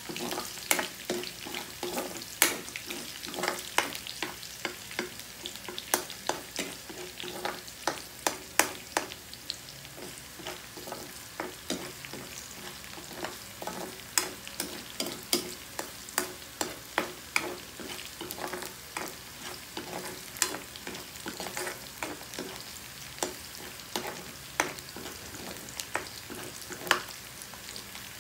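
Garlic and onion sizzling as they sauté in hot oil in a wok, with a spatula scraping and clicking against the pan in irregular strokes as they are stirred.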